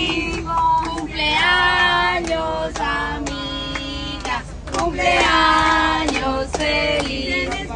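A small group of voices, mostly women's, singing a birthday song together in long held notes, with hand claps keeping time.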